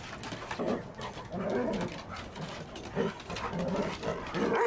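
Two poodles play-fighting, reared up on their hind legs, making a string of short, low-pitched play growls and whines one after another.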